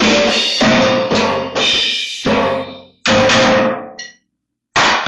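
Loud, drum-heavy music in blocks that break off abruptly, dying away about four seconds in, with one short burst near the end.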